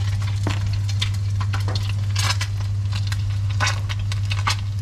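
Batter-coated piece of kisu deep-frying in hot oil in a wok: irregular crackling and popping of tempura batter in oil that is hot enough for tempura, over a steady low hum.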